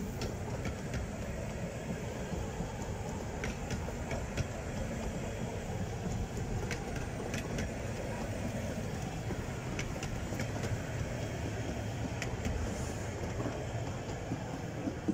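15-inch-gauge passenger coaches rolling past on the track: a steady rumble of wheels on rail with sharp clicks scattered through it.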